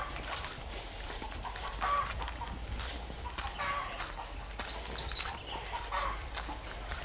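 Poultry calling: short, high, upward-sliding chirps repeat several times a second, mixed with lower clucking calls.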